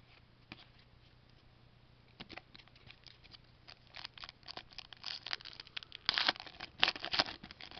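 Trading card pack's foil wrapper crinkling and tearing as a pack is opened and its cards handled. Scattered small crackles at first, growing denser and louder near the end.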